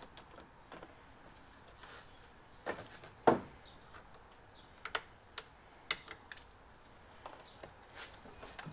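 Scattered clicks and knocks of a plastic cover panel and tools being handled as the cover is taken off an inverter generator, the loudest knock about three seconds in.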